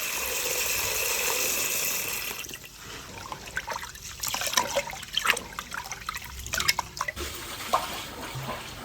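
Kitchen tap running steadily into the sink for about two and a half seconds, then irregular splashing and small knocks as something is rinsed in the water.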